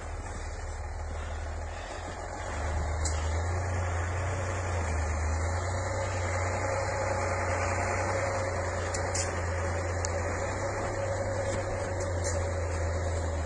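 Off-road 4x4's engine running as it crawls through deep snow, getting louder about two and a half seconds in as the vehicle comes closer.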